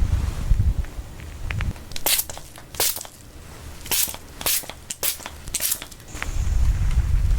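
Close-miked ASMR crackling and crunching sounds: about six short, sharp crackly bursts in the middle, with a low rumble at the start and again near the end.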